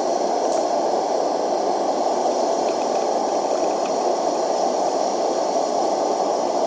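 Homemade blast furnace running at full heat: a steady rushing roar of burner flame, with no change in pitch or level. The furnace is heating a crucible of gold close to its melting point.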